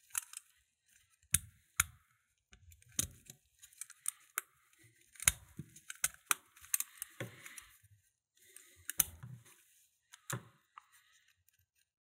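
Scattered sharp metal clicks and light knocks from a cut-open Capitol Industries magnetic padlock being handled and turned over, its shackle and loosened mechanism shifting in the body.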